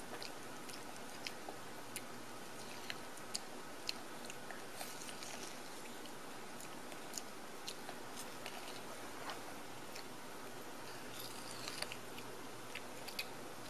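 A toddler biting and chewing kernels off a corn cob: scattered small sharp clicks over a steady background hiss, a little busier near the end.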